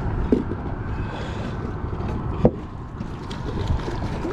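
Wind buffeting the microphone as a steady low rumble, with one sharp click about two and a half seconds in.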